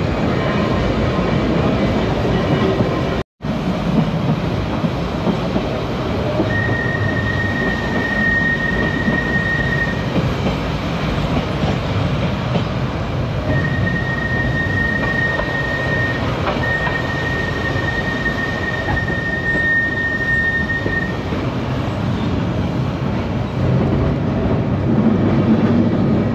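Manx Electric Railway electric tramcar running along the track: a steady rumble of wheels on rail, with a high-pitched wheel squeal for a few seconds and then again for a longer stretch. The sound cuts out completely for a moment about three seconds in.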